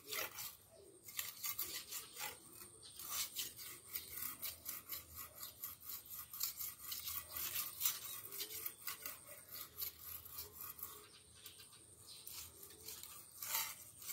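Quick, repeated rasping and scraping strokes, a few a second, from hand work clearing weeds and grass.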